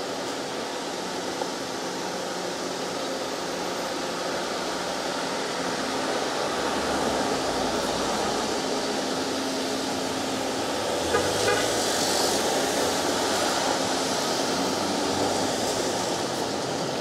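Street traffic: cars and SUVs running and passing on a busy multi-lane road. The noise is steady, with a louder passing vehicle about eleven seconds in.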